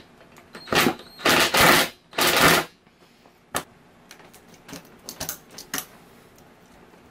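Cordless driver with a socket running a nut down tight on a bolt in three short bursts, then a sharp click and a few light metal clicks.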